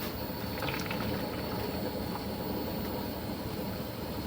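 Liquid soap mixing machine running with a steady, even mechanical noise.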